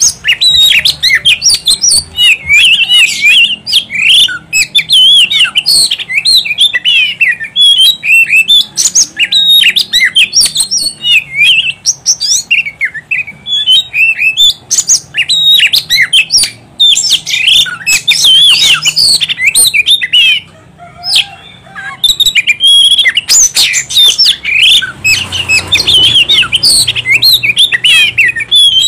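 Oriental magpie-robin singing a fast, continuous, varied song of whistled and chattering notes, with a short break about twenty seconds in.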